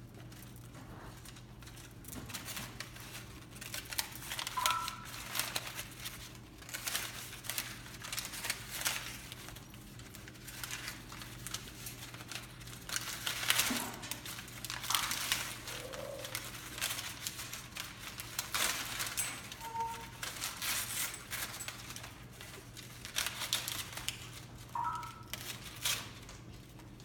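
Sulphur-crested cockatoo chewing and tearing at a hanging toy: irregular crinkling and crackling, with a few brief high squeaks.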